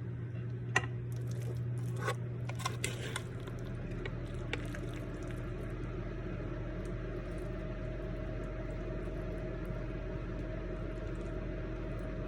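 Creamy spaghetti squash being scooped and dished onto a plate, with a few sharp clinks of a utensil against the dish in the first few seconds, over a steady low appliance hum.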